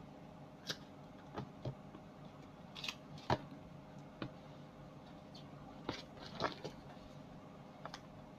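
Scattered light clicks and taps of small hard parts and tools being handled, irregularly spaced, with one sharper knock about three seconds in, over a faint steady hum.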